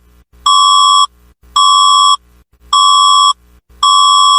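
Electronic emergency-alert beeps: a loud, buzzy, high single-pitched tone about half a second long, repeating about once a second, four beeps with short silences between.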